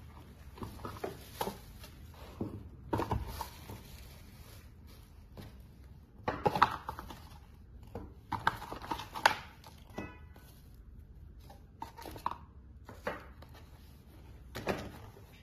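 Small consumer fireworks going off: an irregular series of sharp pops and cracks, the loudest about six and a half and nine seconds in.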